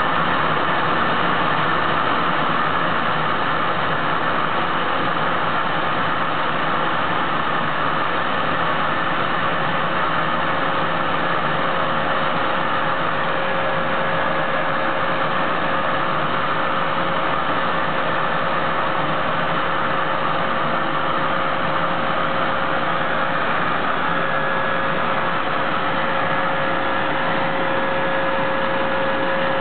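Thermal expansion joint test rig running: a steady rush of machine and airflow noise as hot air is forced through the joint while it is loaded and oscillated at 6 Hz. A steady mid-pitched tone becomes clearer near the end.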